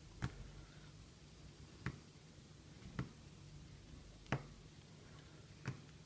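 Five light, sharp clicks at irregular intervals as small hard objects are handled and set down on a work surface during gluing, over a faint low hum.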